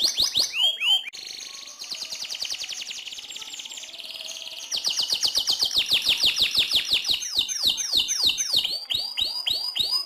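AFS canary singing a long rolling song: a quieter fast buzzing trill for a few seconds, then a loud rapid run of notes at about ten a second, then slower downward-swept whistles at about four a second.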